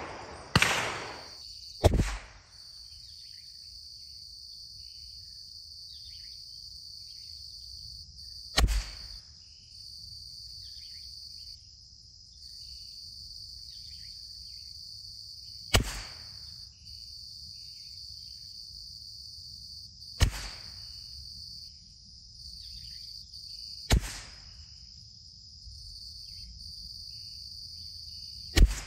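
.22 LR rifle firing Eley Contact rounds: seven sharp shots, the first two close together, then one every four to seven seconds. A steady, high insect chorus runs beneath them.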